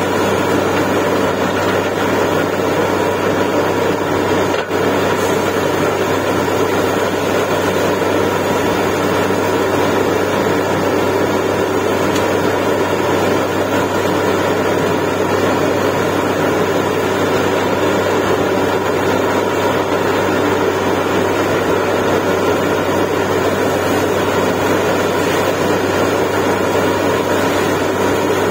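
Truck-mounted borewell drilling rig running steadily while it drills, a loud continuous engine drone.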